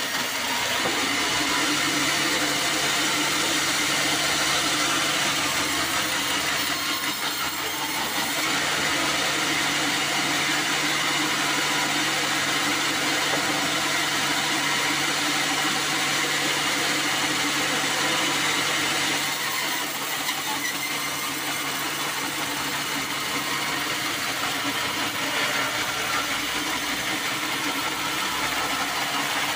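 Band sawmill running, its blade sawing slabs from a black acacia log, a steady machine noise throughout. A low steady hum joins about a second in and drops away about two-thirds of the way through.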